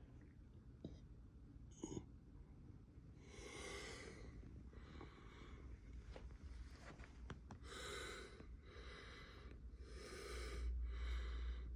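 A person breathing close to the microphone: faint breaths about once a second, starting about three seconds in, with a couple of light clicks just before.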